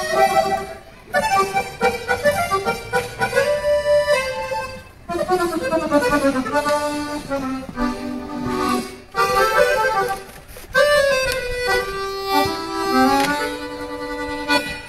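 Accordion playing melodic runs and held chords for a sound check, in phrases broken by short pauses about one, five and nine seconds in.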